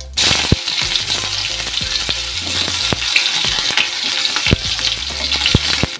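Chopped onions dropped into hot mustard oil and shahi cumin seeds in an iron kadai, sizzling loudly at once and then frying steadily, with a few knocks of a spatula against the pan as they are stirred.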